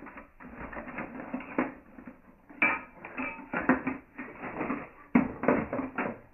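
Irregular clattering and rustling of objects being rummaged through, searching a closet.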